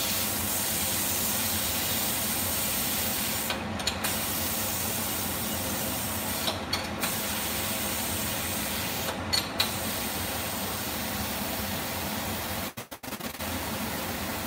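Steam hissing steadily out of a pressure cooker as its whistle weight is held up with a ladle to release the pressure by hand. The hiss breaks off briefly three times and again near the end, where the weight drops back.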